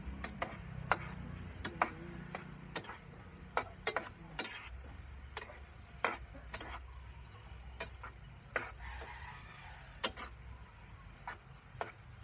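Irregular clinks and knocks of a cooking utensil against a pan while sweet potato pieces for kamote cue are stirred as they cook with sugar, about one or two knocks a second.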